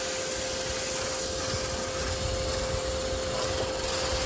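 Pressure washer running with a dual rotating turbo nozzle, spraying water onto a truck's body: a steady hum from the machine under a constant hiss of spray.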